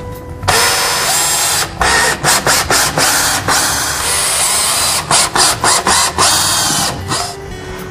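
Cordless drill with a square-drive bit driving 3-inch screws into wood. It starts about half a second in and runs in a series of bursts with short stops between them.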